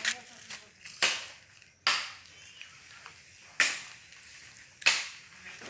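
Tree branches being hacked during tree trimming: five sharp chopping cracks at uneven gaps of about one to two seconds, each dying away quickly.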